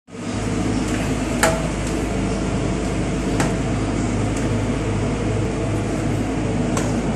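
Engine-room machinery running with a loud, steady, low drone and hum. Three sharp clicks cut through it, about a second and a half, three and a half, and seven seconds in.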